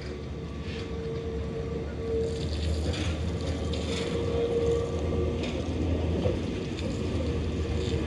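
A tramcar approaching close by on the rails, growing louder. Its running gear gives a low rumble and a steady hum, with scattered rattling clicks from the wheels and mechanism.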